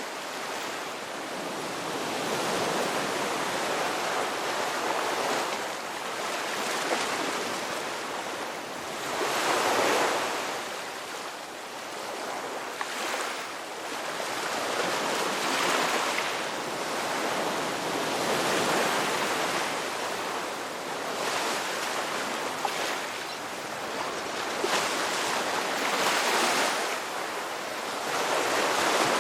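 Sea waves breaking and washing on the shore, a continuous rush that swells and falls back every few seconds.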